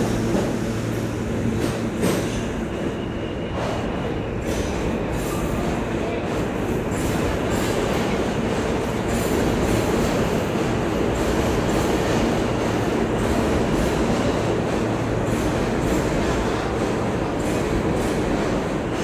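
A New York City subway train pulls out of the station and runs off into the tunnel. Its wheels rumble and clatter on the rails with a few sharp clicks early on, and the motor hum fades after the first couple of seconds.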